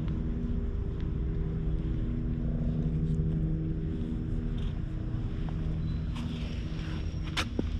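Cat purring steadily while being stroked, a low, even drone. Near the end there is a brief rustle and one sharp click.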